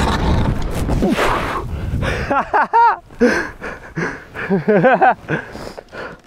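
Rustle and rumble on a body-worn microphone as a man moves about on foot, then his wordless voiced sounds: two short runs of rising-and-falling grunts or hums, about two and a half and about five seconds in.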